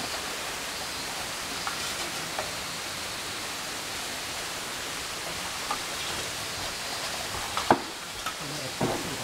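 Steady rush of running water, with small splashes and a few clicks, and one sharp knock about three-quarters of the way through.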